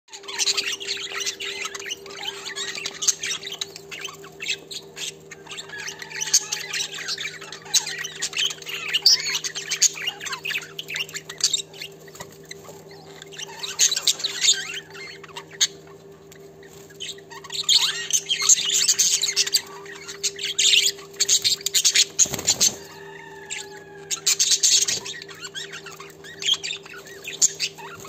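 A flock of budgerigars chirping and chattering in quick bursts of short high calls, over a steady low hum. There is one low bump about three quarters of the way through.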